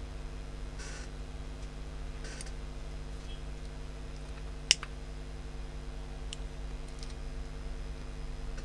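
Small clicks and taps of hand tools working on a smartphone's circuit board, over a steady low electrical hum, with one sharp click about four and a half seconds in.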